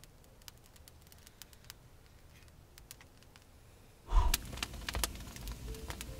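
Faint crackling of burning paper kindling under firewood. About four seconds in, a sharp puff of breath blows out a match, and then a wood fire crackles in the oven, with music coming in near the end.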